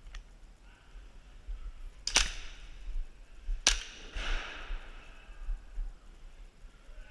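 Two sharp airsoft gun shots about a second and a half apart, the second trailed by a short hiss-like tail.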